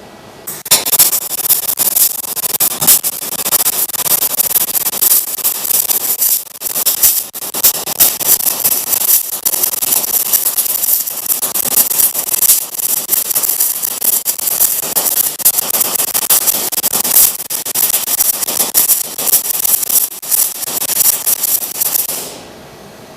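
MIG welding arc on aluminium, fed with 1 mm ER5356 aluminium wire under pure argon by a Tesla Weld MIG/MAG/MMA 323 semi-automatic welder: a loud, dense crackling hiss. It starts about half a second in, breaks off briefly twice around six to seven seconds in, and stops about a second before the end.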